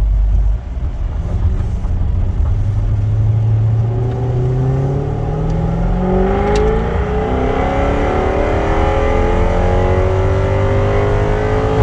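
Jaguar F-Type R's supercharged V8 pulling under acceleration, its pitch climbing for several seconds, then stepping down at an upshift about six and a half seconds in before climbing slowly again.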